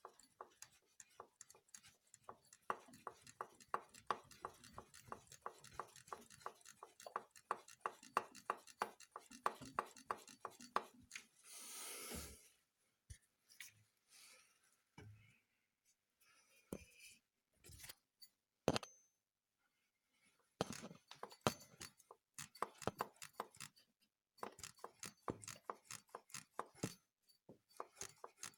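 Hydraulic timing-belt tensioner of a Subaru EJ25D engine knocking, with the engine not running: fast runs of light clicks, about three to four a second, with a pause and scattered single clicks midway.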